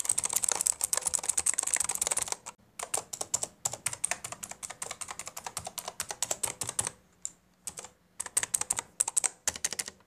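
Fast typing on a Tigoes K2 budget keyboard with blue switches: a dense run of key clicks that pauses briefly twice. The sound is not very shrill for blue switches.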